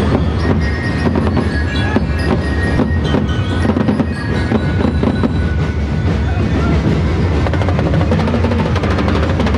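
Loud, continuous percussion music: dense drum beats with ringing, bell-like tones over them.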